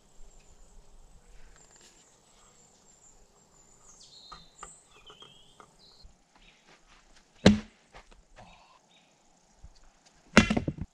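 Faint outdoor background with a few bird chirps, then two sharp knocks about three seconds apart, the second a quick rattle of hits: the heavy Schrade SCHF37 survival knife striking wood.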